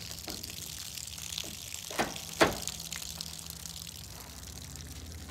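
Large knife blade chopping through an orange target: two sharp chops about half a second apart, around two seconds in.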